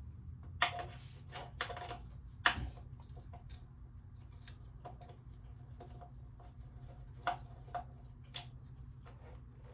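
Scattered metallic clicks and knocks of a socket wrench with an Allen bit on an extension working the brake line's OEM bolt loose, the sharpest about two and a half seconds in, over a steady low hum.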